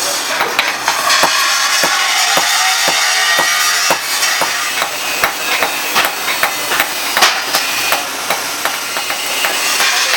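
Hammer striking steel again and again, about two to three blows a second, in an uneven rhythm.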